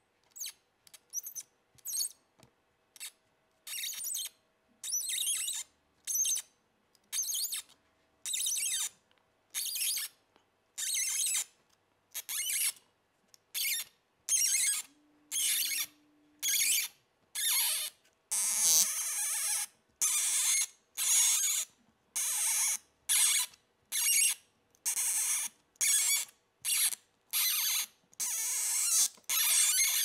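M3 spiral tap in a T-handle tap wrench, turned by hand, cutting threads into a motherboard tray: a run of short, high-pitched scraping strokes, about one a second with brief pauses between, one for each turn of the wrench. The strokes grow longer and closer together in the second half.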